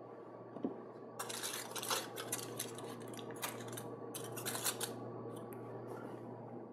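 A quick run of light clicks and scrapes over a steady low hum, about one to five seconds in.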